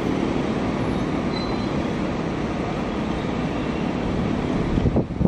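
China Railway DF11G diesel locomotives running steadily as they haul a 25T passenger train slowly into the station: a continuous engine drone with the rumble of the train. A few sharp knocks come near the end.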